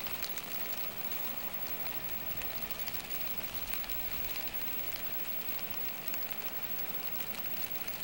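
Steady patter of water drops on the water and shore, an even hiss of many fine ticks with no single loud event.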